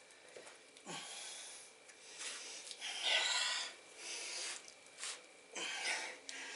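A man breathing hard in short, forceful blasts through nose and mouth while straining with full effort to bend a steel bolt by hand, about six bursts in a row with short gaps between.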